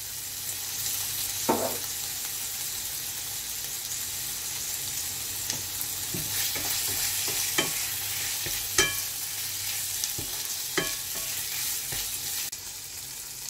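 Chicken, onion, garlic and red chilli sizzling in oil in a non-stick pan, stirred with a wooden spatula that knocks and scrapes against the pan now and then.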